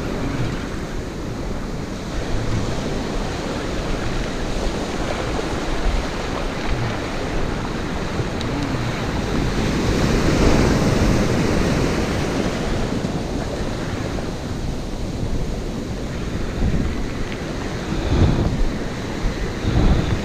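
Ocean surf breaking and foaming up over a pebbly sand beach, with wind buffeting the microphone. The wash swells louder about halfway through and again near the end.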